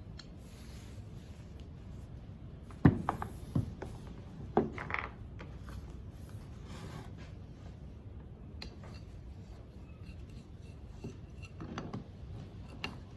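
Small hard parts of a pressure-washer rotating nozzle being handled: a few sharp knocks and clicks about three to five seconds in, with a brief scraping rub, and lighter clicks near the end.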